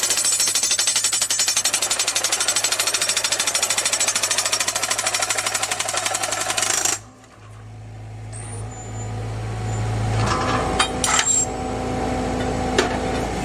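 Geoprobe 7700 direct-push rig's percussion hammer rapidly pounding the drill rods into the ground, stopping abruptly about seven seconds in. A steady low hum from the rig's engine and hydraulics then grows louder, with a few sharp knocks.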